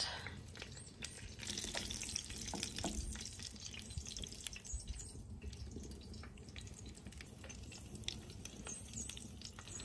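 Hot rendered wild hog fat sizzling in a pan, with a steady scatter of small pops and crackles.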